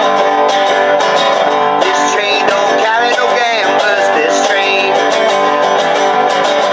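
Instrumental break of an old-time folk song: a harmonica in a neck rack played over a strummed resonator guitar and a banjo, with harmonica notes that bend in pitch about two to three seconds in.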